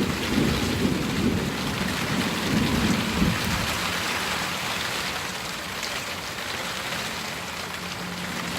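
Rain falling steadily in a storm, with a low rumble of thunder over the first three seconds or so.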